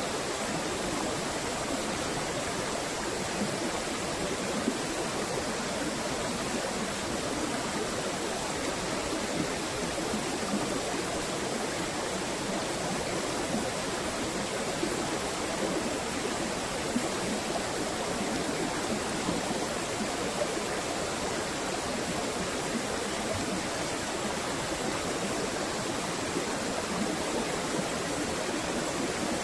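Steady rushing of flowing water, an even wash of noise that holds level throughout.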